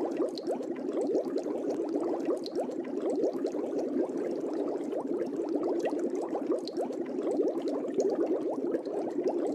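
Air bubbles rising steadily through water in a tall clear bubble tube, a continuous dense bubbling and gurgling.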